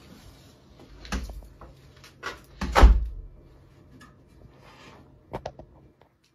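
Several separate knocks and thuds in a small room, the loudest a heavier thud about three seconds in, with a short double knock near the end.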